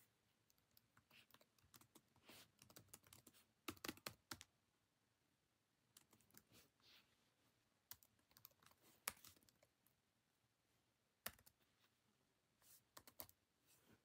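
Faint typing on a computer keyboard: irregular clusters of short key clicks with brief pauses between them.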